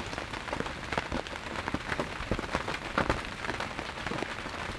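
Steady rain with many irregular close drops pattering on the hunting blind.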